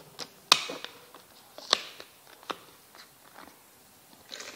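Several sharp clicks and knocks of a coconut-water container and blender jar being handled, the loudest about half a second in. Near the end, coconut water starts pouring into the blender jar with a steady hiss.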